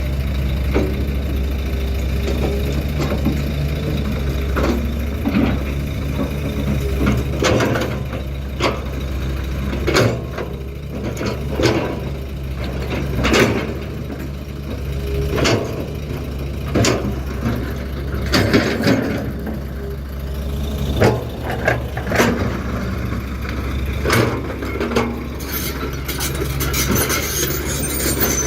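Heavy diesel machinery running steadily, with repeated irregular clunks and rattles of stone being scooped and dropped.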